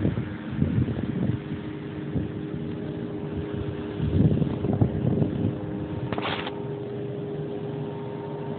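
Rumbling, scuffling noise from the phone being handled and brushed against the cats' fur and the bedding, in two bouts near the start and about four to five seconds in. Under it runs a steady motor hum with a few fixed tones. A brief high-pitched squeak comes about six seconds in.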